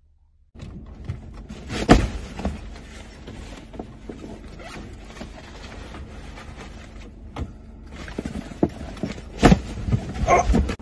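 Shuffling and bumping of people moving about inside a car, with two heavy thumps, one about two seconds in and one near the end.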